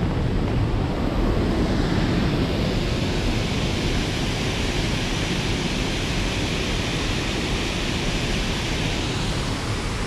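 Steady rushing of a waterfall pouring into a mountain stream, a continuous hiss that grows brighter about two seconds in. Wind rumbles on the microphone underneath.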